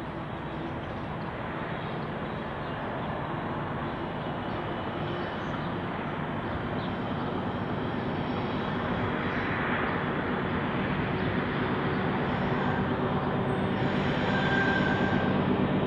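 Diesel-electric locomotives hauling a coal train, engines running steadily as the train approaches and growing louder throughout.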